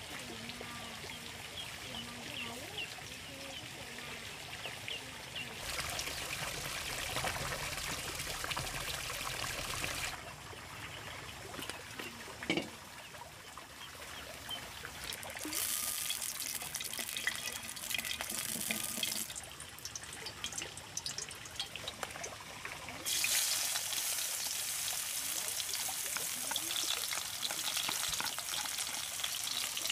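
Water trickling and pouring, in several stretches that start and stop abruptly, with a few light clicks and a knock.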